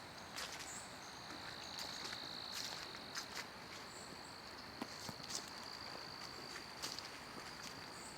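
An insect trilling faintly and steadily at one high pitch, with scattered footsteps on a path.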